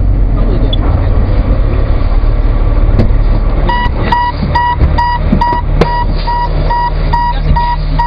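Fire truck's engine running with a steady low rumble; a little under four seconds in, a reversing alarm starts beeping, a single high tone about two and a half times a second, with a few sharp clicks among the beeps.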